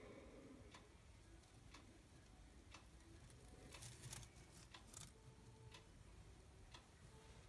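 Near silence: room tone with faint, short ticks about once a second, and a brief cluster of slightly stronger clicks about four seconds in.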